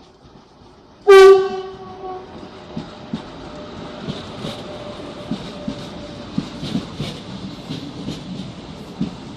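Renfe train horn sounds one loud blast about a second in, then the train's wheels clack over rail joints above a steady rumble.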